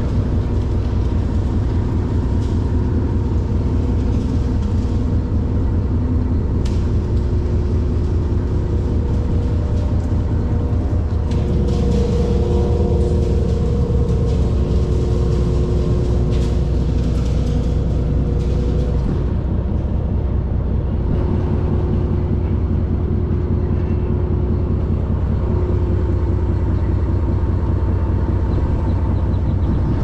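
Concrete mixer truck's diesel engine running steadily: a loud low rumble with a few faint whining tones above it.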